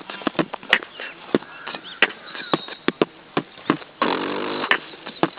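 Beatboxing: quick mouth-made clicks and percussive hits in an uneven rhythm, with a buzzing pitched sound lasting about half a second, about four seconds in.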